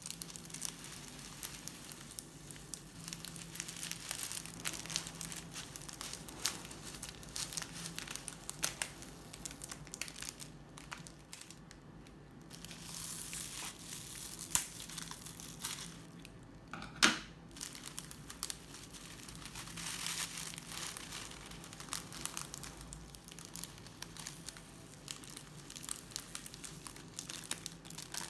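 Crunchy slime being squeezed and pressed by hand, a steady run of small crinkling crackles, with one sharp snap about 17 seconds in.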